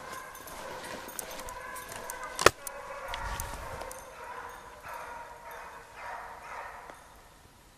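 A pack of Basset Griffon Vendéen hounds baying in the distance as they run a scent, the cries overlapping and fading near the end. One loud, sharp crack cuts through about two and a half seconds in.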